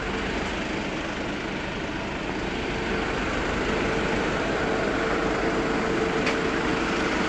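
Mercedes-Benz Sprinter 314 CDI refrigerated vans running at idle, their four-cylinder diesels and GAH fridge units making a steady mechanical hum while the units cool down; a steady tone joins about three seconds in and the hum gets slightly louder.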